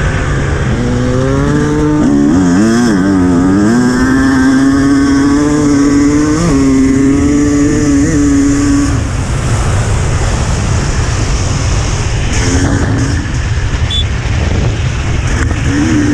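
Enduro dirt bike engine at speed, heard from the rider's helmet: its pitch wavers up and down for the first few seconds, then holds steady. About nine seconds in the engine note drops away, leaving heavy wind buffeting on the microphone, and it rises briefly again near the end.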